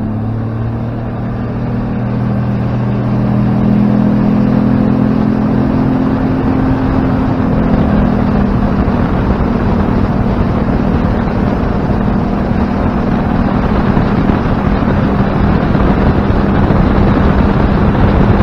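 Outboard motor pushing a fishing boat up to speed: its pitch climbs during the first seconds, then settles to a steady cruise. A loud rush of wind and water over the hull builds along with it.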